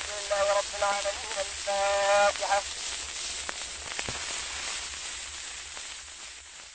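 Hissy, crackling old recording: a voice chanting in short held, wavering notes for the first two and a half seconds, then only steady hiss with a few clicks, fading out near the end.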